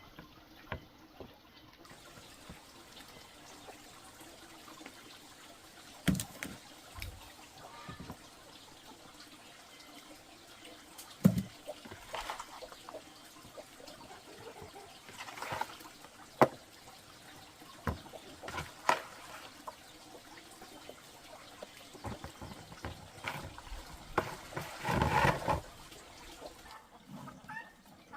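Water splashing and trickling, with scattered knocks and clatters, and a longer busy patch of sound near the end.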